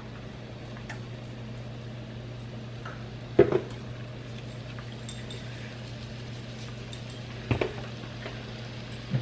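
Spice containers being handled and set down: a sharp clack about three and a half seconds in and a quick double knock near the end, over a steady low hum.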